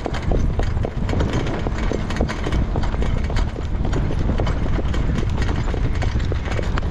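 Rapid, steady hoofbeats of a Standardbred harness horse on a dirt track, heard from the cart behind it, over a loud steady low rumble.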